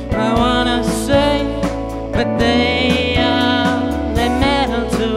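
A band playing a song live: a drum kit keeping a steady beat, guitar and an analog synthesizer, with a wavering lead melody on top.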